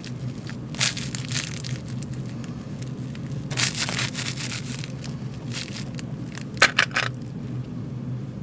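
Crinkle fabric inside a plush stuffed animal crackling as stuffing is packed in around it by hand. It comes in short crinkly bursts: about a second in, again around the middle, and briefly near the end.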